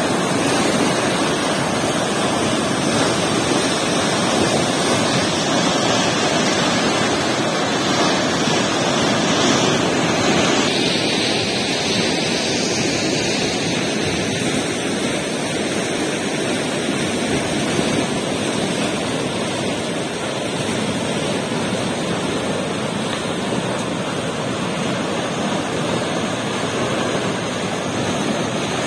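Water gushing out through a concrete sluice gate, a steady loud rush of churning whitewater. The tone of the rush shifts slightly about ten seconds in.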